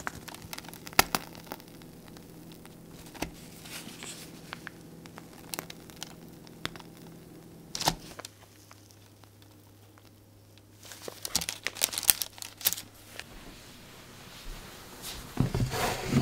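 A plastic piping bag crinkling and crackling in the hands as stiff chocolate cookie batter is squeezed out onto parchment paper. The crackles come in scattered clicks, with a quiet spell in the middle, a busier flurry a few seconds later and another near the end.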